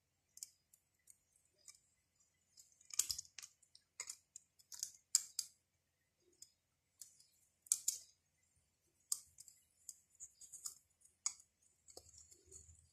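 Faint, irregular clicking and scraping of a steel piston ring being spiralled by hand into its groove on a VW Golf Mk1 1.8 piston, the ring's ends catching and sliding over the piston's lands.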